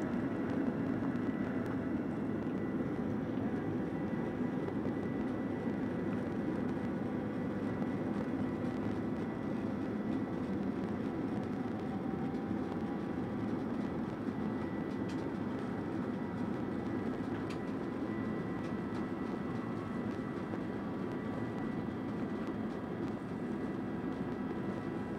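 Boeing 737-900's cabin noise while taxiing, heard from a window seat: its CFM56-7B turbofans run steadily with a thin whine over a dense rumble.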